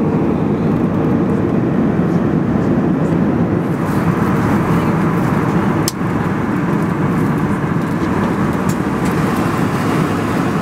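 Steady cabin noise of an Airbus A320-200 in cruise flight: an even rush of airflow and engine noise, broken by a brief click about six seconds in where the recording cuts.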